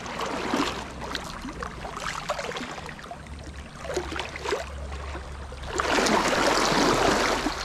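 Rushing river water, a steady noisy wash that grows louder and rougher about six seconds in.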